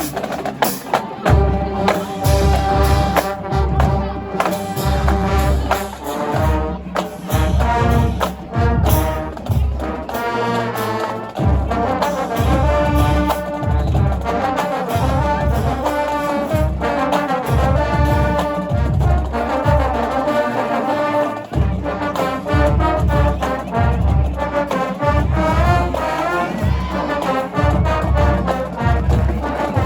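Marching band playing: a brass section of trombones and trumpets carries the melody over heavy, regular bass drum hits.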